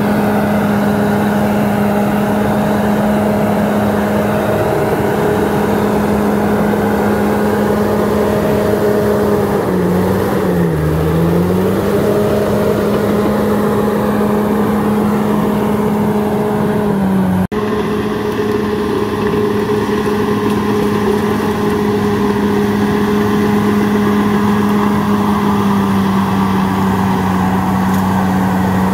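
Bulldozer's diesel engine running steadily under working load, its pitch sagging briefly about ten seconds in and then recovering. There is an abrupt break a little past halfway.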